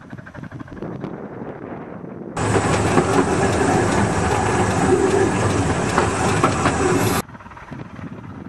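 1964 Guest-built miniature steam locomotive running with its train. About two and a half seconds in, close-up running noise from the footplate cuts in, much louder and full of rattle, and stops abruptly near seven seconds. Before and after it, the train is heard faintly from afar, with wind on the microphone.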